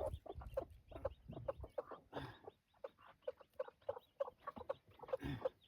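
Broody mother hens clucking with their chicks, a steady run of short low clucks about two a second, with a louder, longer call about five seconds in.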